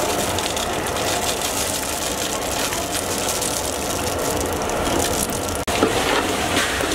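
Raw peanuts frying in hot oil in a large steel kadai with dried red chillies and curry leaves, a steady sizzle and crackle. Near the end a metal ladle stirs the mix, scraping the pan.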